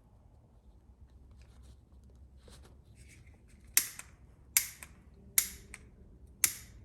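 A hand-held lighter being struck four times, sharp clicks a little under a second apart, each followed by a fainter click, while the cut end of a paracord is being melted so it won't fray.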